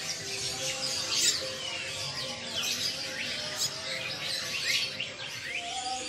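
Many caged songbirds chirping and whistling at once: a dense tangle of short, high chirps and quick sweeping notes from several birds overlapping throughout.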